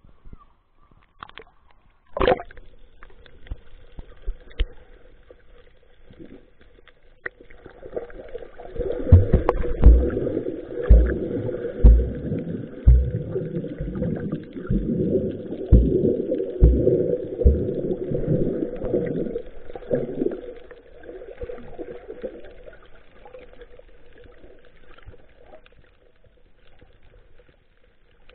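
Muffled sea water sloshing and knocking against an action camera's waterproof housing as it is moved at and under the surface, with a run of heavy thumps about once a second through the middle stretch, then fading to a low murmur.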